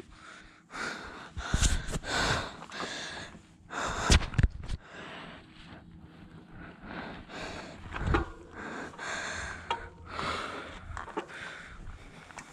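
Mountain bike riding a rough trail: a rushing noise that swells and fades about once a second, with sharp knocks and rattles as the bike hits bumps, the loudest about four seconds in.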